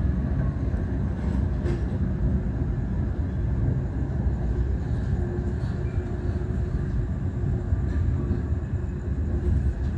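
Express passenger train running along the track: a steady low rumble of wheels on rails, with no speech over it.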